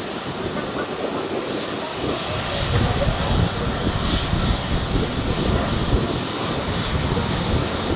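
Airbus A330-200 jet airliner landing: a steady, rumbling rush of engine and air noise with no clear tone.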